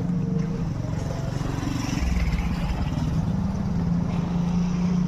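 A bus's engine running close by, a steady hum with a deeper rumble coming in about two seconds in as the vehicle nears or pulls under load.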